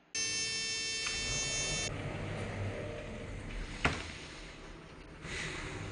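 A harsh electronic buzz that starts abruptly and stops after just under two seconds, followed by a low hum and rumbling background with a single sharp click about four seconds in.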